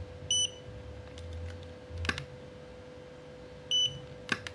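Godox V850 II speedlite firing at full power: a short high beep near the start, a sharp click of the flash firing about two seconds in, then another beep and another click near the end. Each beep comes about a second and a half after a shot and signals that the flash has recharged and is ready, with no drop in power after its repair.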